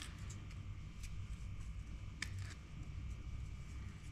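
Quiet handling noises: a few faint, short ticks and rustles as fishing line is pulled through a pressed bait briquette, over a low steady hum.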